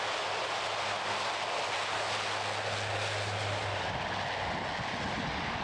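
C-130 Hercules four-engine turboprop running as the aircraft rolls along the ground: a steady rushing noise, with a low steady hum underneath that fades out about four seconds in.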